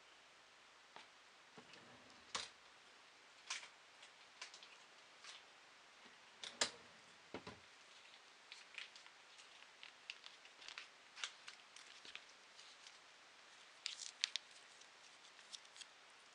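Faint, irregular clicks and small crunches from cats eating and stepping about close to the microphone on a laminate floor, with a few louder knocks, the loudest about six and a half seconds in.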